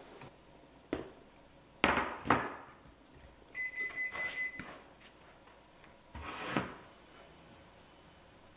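Metal kitchen tongs knocking and clacking against a bowl and baking tray while breadcrumb-coated cauliflower pieces are handled: a click about a second in, two sharp knocks around two seconds, then scraping and rattling of the tongs in the breadcrumb bowl around four seconds and again near six and a half seconds.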